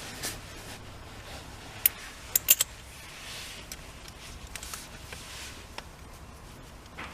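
Small metal parts and tools clinking during the fitting of a steering-wheel quick release: a sharp click about two seconds in and a quick run of three more just after, over faint handling noise.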